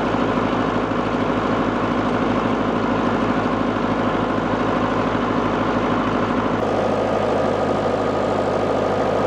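Tractor diesel engine idling with a fast, even low chug. About two-thirds through, the sound changes abruptly to a steadier hum.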